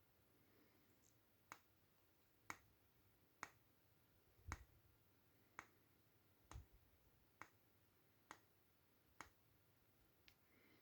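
DVO Diamond D1 29 suspension fork's air spring clicking: nine sharp clicks about a second apart, a few of them with a low thud underneath. This is the unwanted click noise from the air spring.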